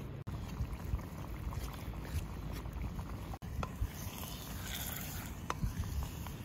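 Wind rumbling on the microphone, with a wooden spatula scraping and stirring chopped onions in a clay handi over a wood fire in the second half, and a few light clicks.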